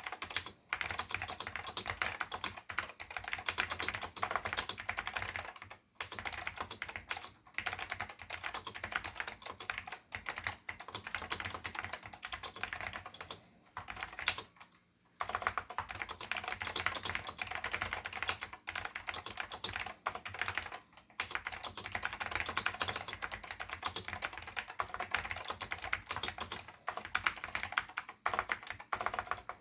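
Steady typing on a Dell AT101 bigfoot keyboard with Alps SKCM Salmon switches and Alps Electric ABS doubleshot keycaps: a dense run of key clacks, broken by a few brief pauses, the longest about fourteen seconds in.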